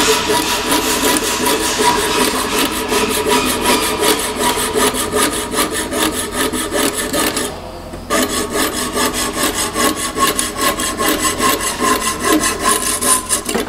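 Abrafile rod-saw blade in a hand saw frame cutting metal, with steady back-and-forth strokes that pause briefly a little past halfway.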